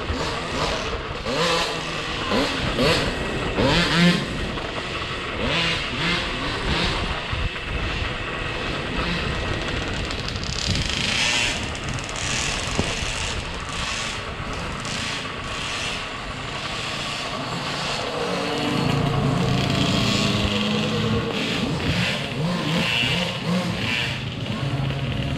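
Off-road motorcycles running on a race course, their pitch rising and falling, over a steady rough rumbling noise; the pitch steadies into a low drone for a few seconds near the end.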